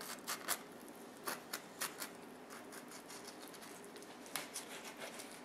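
Fillet knife slicing a Chinook salmon fillet off the bone, with faint, irregular clicks and ticks as the blade works along the bones.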